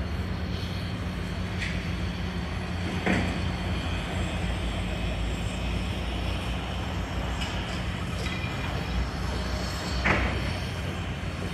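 Steady roar of city traffic heard from high above the streets, with a steady low hum under it and short louder swells about three and ten seconds in.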